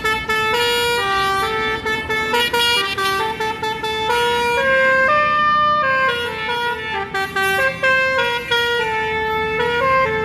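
Bus telolet horn playing a melody, its notes stepping up and down several times a second without a break.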